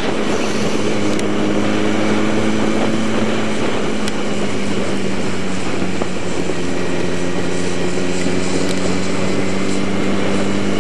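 2007 Yamaha YZF-R1's inline-four engine running at a steady cruise with a nearly constant pitch, under a steady rush of wind and wet-road noise.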